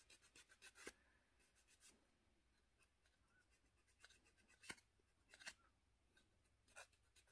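Faint, scratchy strokes of a wooden nail file rasping dry callus off the side wall of a fingernail. A quick run of strokes comes in the first second, a few single strokes follow after a pause, and the sound is very quiet throughout.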